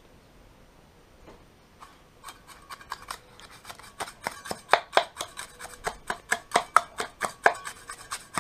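A small steel trowel tapping and scraping as it packs a dry sand-cement mix into the gap between concrete paving blocks and a linear drain channel. Sharp taps start about two seconds in and grow louder, coming about three a second.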